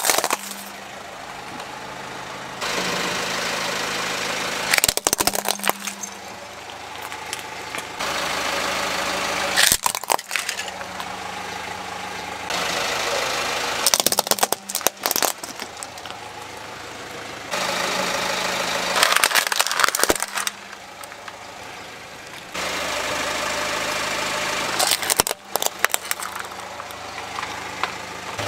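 A car idles and creeps forward while its tyre crushes plastic toys, giving clusters of sharp cracks and crunches about every five seconds over the steady engine hum.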